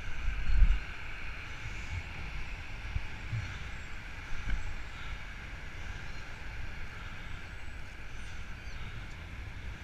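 Wind rumbling on a bicycle-mounted camera's microphone while riding, over the steady noise of road traffic. The strongest wind gust comes about half a second in, with a smaller one around the middle.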